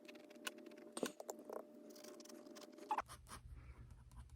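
Quiet, scattered light taps and scratches of a paintbrush working on paper, the loudest about a second in and again near three seconds, over a faint steady hum.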